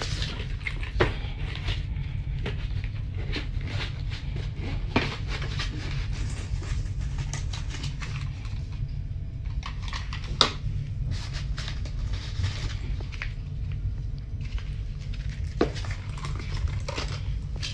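Items being handled and set down while unpacking luggage: scattered light knocks, clicks and rustles of bags and objects, over a steady low hum. The sharpest knock comes about ten seconds in.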